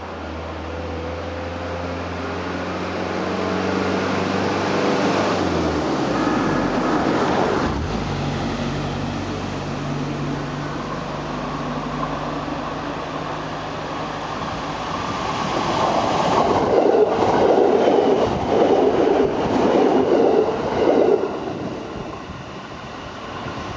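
JR East 209 series 3100 electric commuter train passing a level crossing. Its running hum drops in pitch as it goes by, then its wheels clatter rhythmically over the rail joints, loudest a few seconds before the end, and the sound fades as the train moves away.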